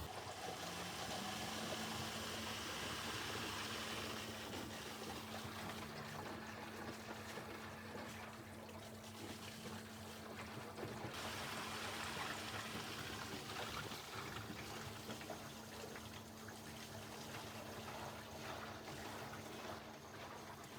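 Panasonic VX-series drum washing machine running with water trickling and splashing inside, over a steady low hum.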